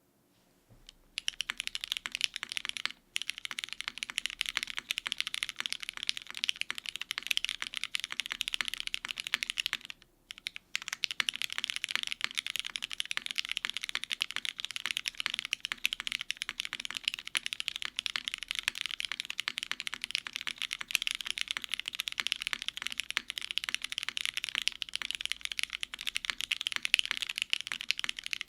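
Continuous fast typing on a gasket-mounted 65% mechanical keyboard with lubed Cherry MX Black linear switches, an aluminum plate, GMK ABS keycaps and no dampening foam. The typing starts about a second in, with short pauses near three seconds and near ten seconds.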